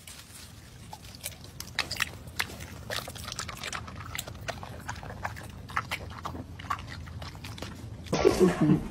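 A dog biting and chewing a tomato: irregular wet crunches and smacks. About a second before the end a louder voice cuts in abruptly.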